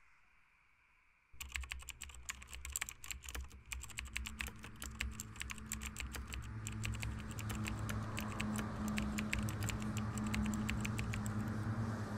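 Rapid typing on a Sony VAIO laptop keyboard, dense quick key clicks starting suddenly about a second in, with a low steady hum growing louder underneath.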